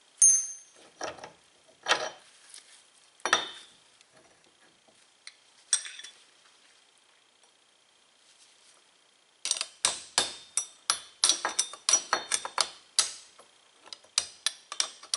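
Hammer tapping a punch against the steel bearing race inside a Porsche 944 aluminum front wheel hub: a quick run of light metallic taps, about three or four a second, beginning about two-thirds of the way in. The taps are light because the race, shrunk by a weld bead, is almost falling out. Before that come a few separate metal clanks as the removed race and the hub are handled.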